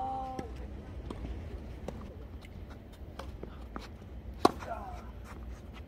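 Tennis balls struck by rackets and bouncing on a hard court: scattered sharp pops and knocks during doubles play, the loudest hit about four and a half seconds in.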